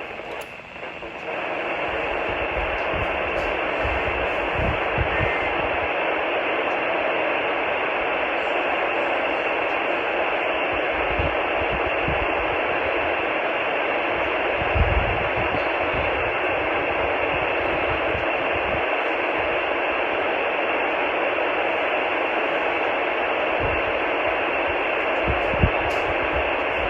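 FM radio static: a steady hiss with no programme audible, as a weak station's signal is lost under noise. The hiss steps up about a second in, with a few faint low bumps beneath it.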